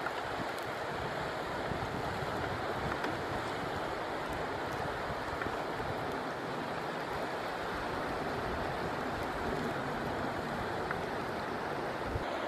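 Steady rush of a swollen, fast-flowing river.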